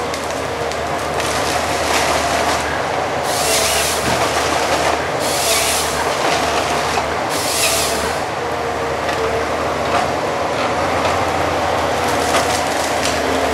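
Valmet 911.3 forestry harvester running steadily under hydraulic load while its SP 561 LF harvester head grips and works a spruce stem, with scattered cracking and snapping of wood and branches. Three hissing bursts of about a second each stand out, about three, five and seven seconds in.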